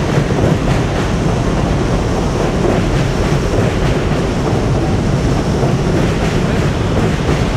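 Elevated subway train passing on the tracks overhead: a loud, steady, deep noise of the train running along the el.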